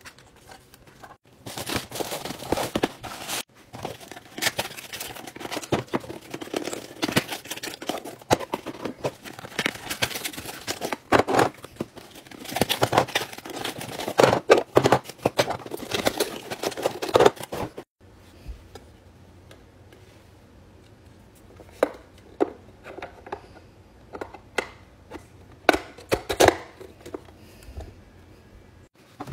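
Cardboard and foam packaging being handled and torn open: dense, scratchy rustling and crinkling. About two-thirds of the way in it changes to a quieter stretch of scattered light clicks and taps as hard plastic storage boxes are handled.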